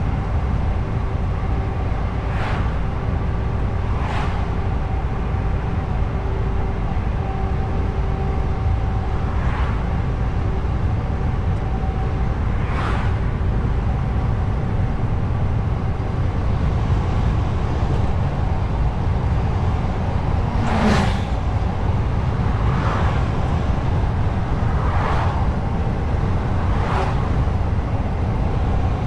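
A truck driving on the road: a steady low engine and road drone with a faint steady whine that fades about halfway through, and short swishes every few seconds, the loudest about two-thirds of the way in.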